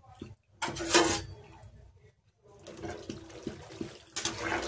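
Macaroni boiling in a wide pan of water, bubbling and hissing in surges, with a ladle stirring through the pot near the end.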